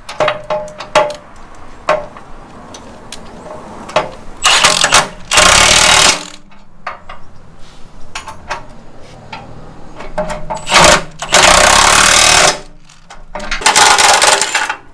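Milwaukee M18 cordless impact wrench hammering in five short bursts, the longest about a second, running bolts tight on a steel cross member. Light metallic clicks and knocks of the socket and steel come between the bursts.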